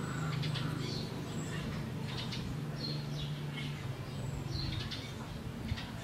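Asian glossy starlings giving short, sharp, high chirps, roughly one or two a second. A steady low hum runs under them and fades out about five seconds in.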